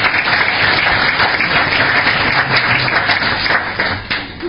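Audience applause, a dense patter of many people clapping, fading out near the end.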